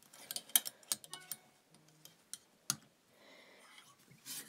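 Plastic clothes hangers clicking and clattering as garments on a rail are handled, with a few sharp separate clicks in the first three seconds.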